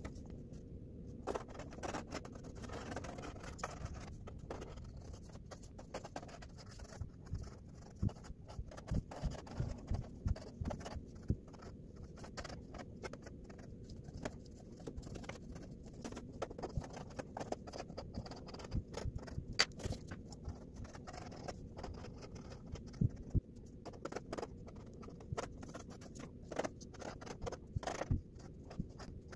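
Pencil sketching on paper: quick, irregular scratches of the lead across the sheet.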